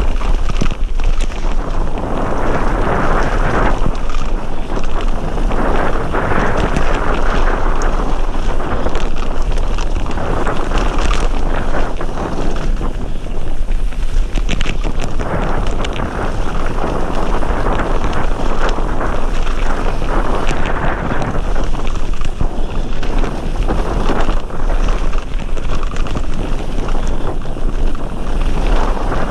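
Wind buffeting the action camera's microphone on a fast mountain bike descent, in surges every second or two, over the rumble of tyres rolling on a gravel trail. Frequent small knocks and rattles from the bike run through it.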